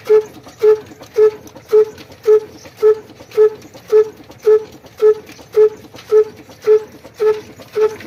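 Old Ruston Hornsby single-cylinder horizontal diesel engine running steadily, firing with one short, sharp exhaust beat a little more often than every half second, even and regular, over a low mechanical rumble.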